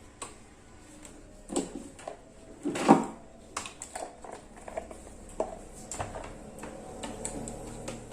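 Irregular clicks and clattering knocks of hard objects being handled, the loudest a clatter about three seconds in, over a low steady hum.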